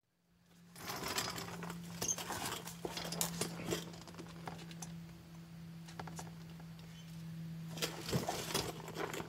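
Scattered light clicks and rustles of something being handled, over a steady low hum that comes in just after the start.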